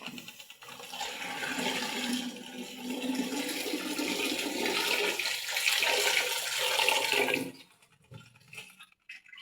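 Water rushing and churning in the tub of a 1973 Chaika-2 washing machine. It cuts off suddenly about seven and a half seconds in.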